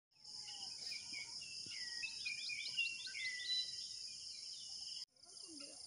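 Dawn chorus of insects and birds: a steady high insect drone with several birds calling over it, among them a quick run of short falling notes. The sound cuts out for an instant about five seconds in and resumes.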